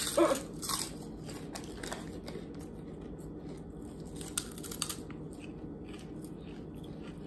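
Crisp fried wheat-flour chicharrones being bitten and chewed: loud sharp crunches in the first second or two, then a few sparser, quieter crunches.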